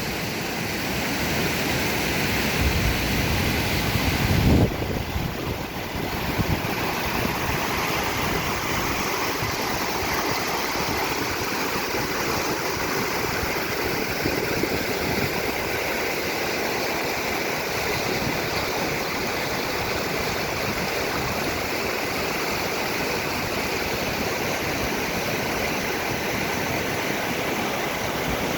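A waterfall rushing: falling water makes a dense, steady noise. A brief louder low buffet comes about four to five seconds in.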